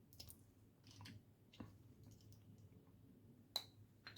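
Faint clicks and taps of plastic miniatures and bases being handled, with a sharper click about three and a half seconds in.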